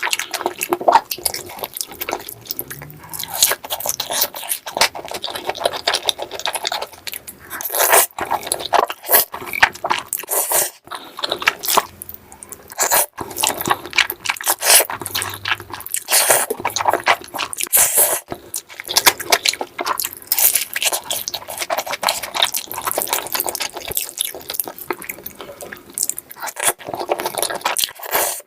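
Close-miked eating: irregular, continuous crunching and wet chewing sounds.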